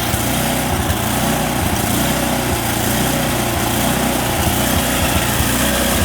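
Snowblower engine running at full throttle with a surging idle, rising and falling in a "vroom, vroom". The owner puts this rough running down to a dirty carburetor after the machine sat unused all summer.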